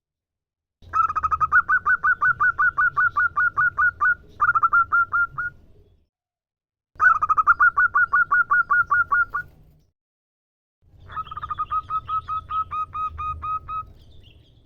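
Female zebra dove (perkutut) calling: three bouts of rapid, evenly repeated short notes, about five or six a second, each bout lasting a few seconds with short pauses between them.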